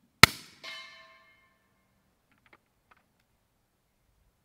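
One suppressed rifle shot, followed about half a second later by the ringing clang of the bullet hitting a steel target. Two faint clicks come near the middle.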